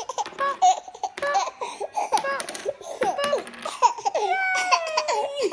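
Baby laughing hard in a run of short, rapid bursts of giggles, ending in a long high squeal that falls slowly in pitch.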